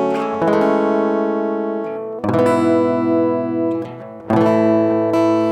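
Acoustic guitar strumming sustained chords that change every couple of seconds: the instrumental introduction to a worship song.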